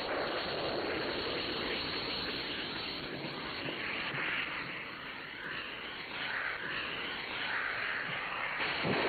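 Steady rushing roar of a Sidewinder air-to-air missile's rocket motor in flight, starting with the launch.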